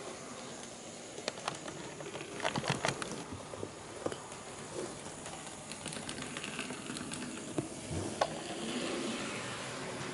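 HO-scale KATO EF81 model electric locomotive running on sectional track: a steady whirr of motor and wheels, with sharp clicks as the wheels cross rail joints, a quick run of them about two and a half seconds in.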